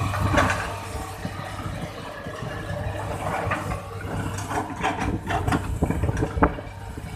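Hitachi hydraulic excavator's diesel engine running steadily, with a string of sharp knocks in the second half, the loudest about six and a half seconds in.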